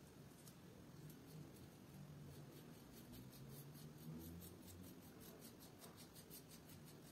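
Double-edge safety razor with a Ladas blade scraping stubble on the neck over aloe vera gel: a faint run of short, crisp scrapes, coming faster in the second half.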